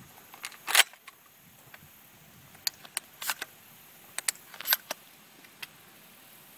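Shells being loaded into the tube magazine of a Benelli SuperNova 12-gauge pump-action shotgun: a scattered series of sharp clicks, the loudest about a second in and a cluster a little after the middle.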